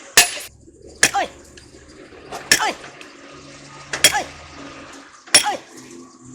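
Five sharp hammer blows on metal, about one every second and a half, each followed by a short ringing that drops in pitch.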